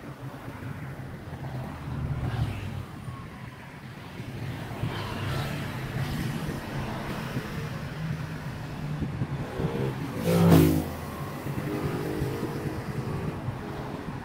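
Steady low rumble of outdoor city traffic and wind, with one vehicle passing loudly about ten seconds in, its engine note sliding as it goes by.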